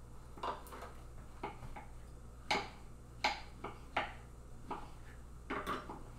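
Kitchen knives slicing peaches on wooden cutting boards: a dozen or so light, irregular taps of the blades striking the boards, the loudest in the middle.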